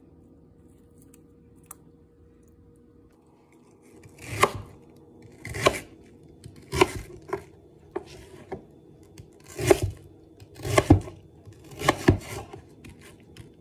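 Kitchen knife chopping through a peeled onion onto a plastic cutting board. After about four quiet seconds come about nine separate cuts, roughly a second apart, some heavier than others.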